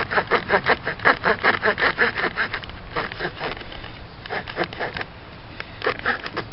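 The small folding saw blade of a GEC Lumberjack pocketknife cutting into a log in quick back-and-forth strokes, about five a second, with brief pauses before the strokes resume.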